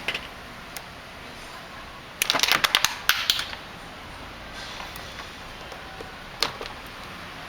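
Sharp clicks and snaps from a hand tool working the ends of electrical wire as the insulation is stripped: a quick run of about a dozen clicks a couple of seconds in, then one more click later on.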